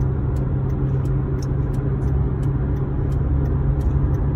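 Steady road and engine rumble heard from inside a moving car's cabin, with faint light ticks above it.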